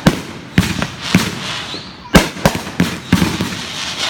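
Fireworks exploding: an irregular string of sharp bangs, the loudest about halfway through, with crackling between them.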